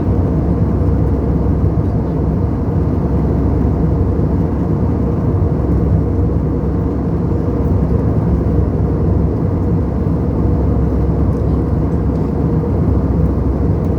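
Airbus A320 airliner noise: a steady low rumble that holds even throughout, with no change in pitch.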